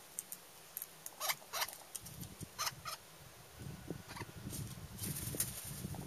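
Sharp clicks and cracks of a male Australian king parrot cracking and husking sunflower seeds in its beak, several in the first three seconds. From about three and a half seconds in, a low rumble and rustle with scattered clicks comes in.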